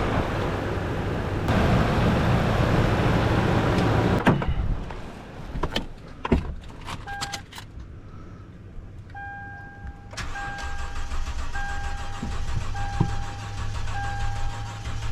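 2011 Toyota Tundra's 4.6-litre V8 being cranked over by its starter for about four seconds without catching, then a few clicks. After that a dashboard warning chime repeats about once a second. The engine turns over but won't fire even on a jump, which the owner puts down to not getting fuel.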